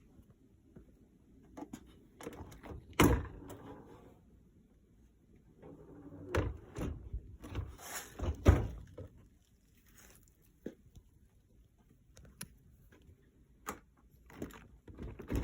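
Dishwasher door and racks being opened and closed: a series of separate thunks and clatters, loudest about three seconds in and in a cluster in the middle, with a few more near the end.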